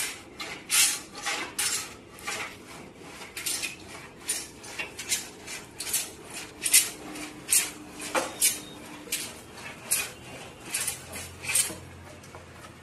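A run of sharp metallic taps and clinks from hand tools at work in carpentry, irregular, about one or two a second, then stopping shortly before the end.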